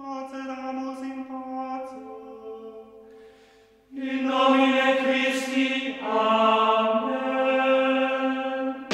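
Background music: voices chanting long held notes in two phrases, the first fading out and the second coming in about four seconds in, shifting pitch partway through.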